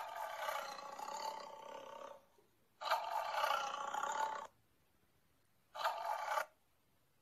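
An augmented-reality card app's sound effect of a cat-like fantasy creature roaring three times: a long roar of about two seconds, a second of about a second and a half, and a short one near the end.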